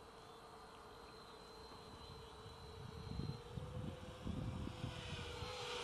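SK450 quadcopter's four motors and propellers buzzing faintly at a distance, getting louder and wavering in pitch near the end as it flies closer. Low gusts of wind rumble on the microphone.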